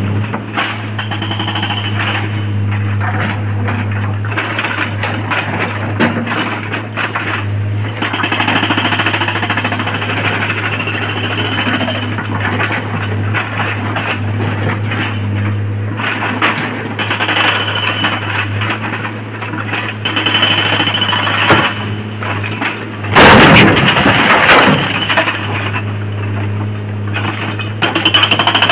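A SANY hydraulic excavator working in broken rock: its diesel engine drones steadily while the steel bucket scrapes and digs through stone, with scattered knocks and clatter of rocks. About 23 seconds in, a loud crash of rock pouring into the steel body of a dump truck lasts about two seconds.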